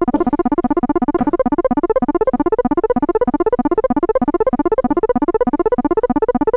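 Donner B1 analog bass synthesizer's arpeggiator running super fast with the tempo pushed to 240: a rapid stream of short notes, about sixteen a second, in climbing runs repeated over and over.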